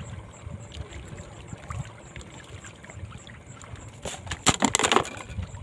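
Strong wind buffeting the microphone in a gusty low rumble, over water lapping. About four seconds in comes a second-long burst of sharp crackling.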